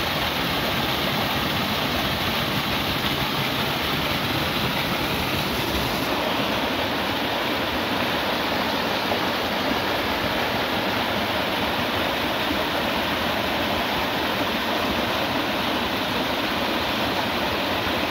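Muddy rainwater runoff rushing through a gully and pouring over a small rocky drop: a steady, loud rush and splash of water.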